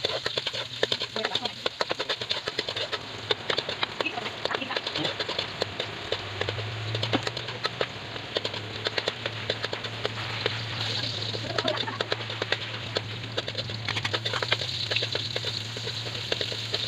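Ginger and onion sautéing in hot oil in a steel wok, crackling and sizzling as a spatula stirs them. A steady low hum comes in about six seconds in.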